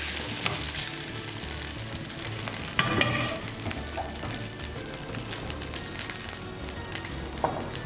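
Hot sautéed vegetables sizzling as a spatula scrapes them out of a frying pan into a glass baking dish and spreads them. Scattered spatula clicks and scrapes, with a louder knock about three seconds in.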